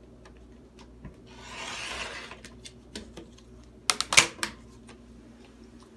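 Folded cloth being cut by hand on a cutting mat: a rasping rub about a second and a half in, then a short run of sharp cutting snips about four seconds in, the loudest part.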